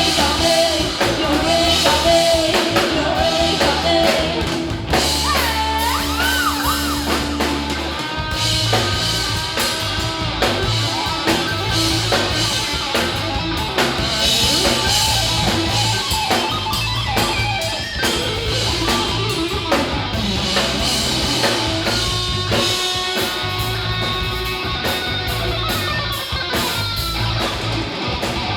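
Live rock band playing loud amplified music: electric guitar, bass and drum kit, with bent, wavering guitar notes about five to eight seconds in.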